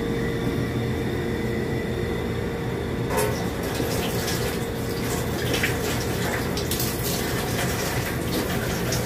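Water running from a tap, coming on about three seconds in and splashing as a drink can is rinsed under it, over a steady hum.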